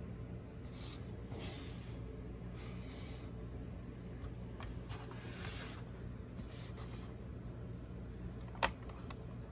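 Low steady electrical hum with faint rubbing and handling noises, then one sharp click near the end as a finger works the Sony ICF-CD815 clock radio's alarm-mode slide switch.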